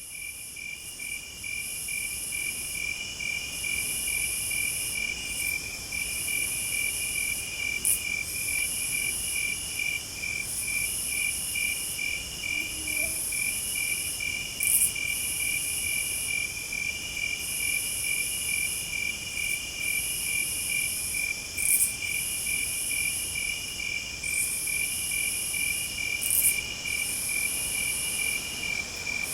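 A chorus of crickets: a steady, pulsing chirp, with a higher insect buzz coming in repeated phrases a second or two long with short gaps between them.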